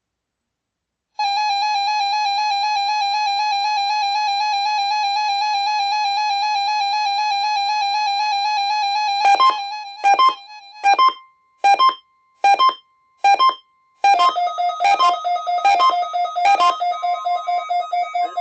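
Electronic emergency alert tones: a steady buzzy tone for about eight seconds, then a string of short beeps, then a pulsing tone.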